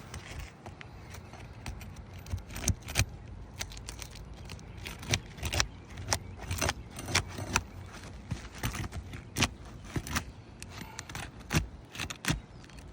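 Asphalt roof shingles being pried loose from their adhesive seal strips: irregular sharp clicks, crackles and scrapes, some of them metallic.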